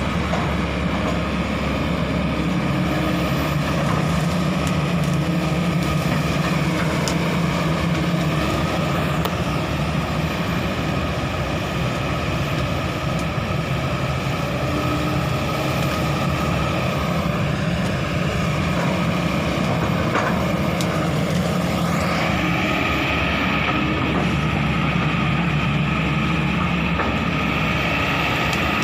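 Kobelco SK200 excavator's diesel engine running steadily. A little over two-thirds through, a higher whine rises and then holds.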